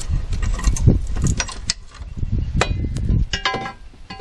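Metal motor mounting plate knocking and clanking against the golf cart's frame as it is pushed into place: a string of knocks, with ringing metallic clanks in the second half.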